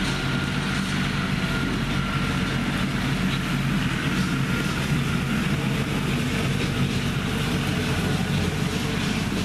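Honeybees buzzing from an opened hive: a steady, loud drone of many bees. The colony is stirred up, making what the beekeeper calls serious noise, while its brood frame is being handled.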